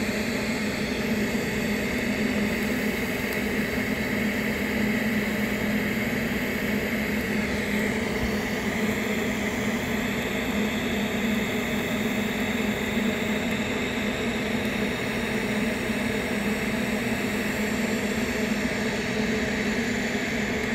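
TIG welding arc on 316 stainless steel, a steady hiss over a low hum, as filler wire is pushed in to fill a drilled hole.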